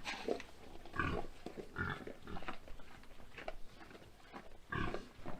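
Pigs grunting: short, separate grunts every second or so, the loudest about a second in and near the end.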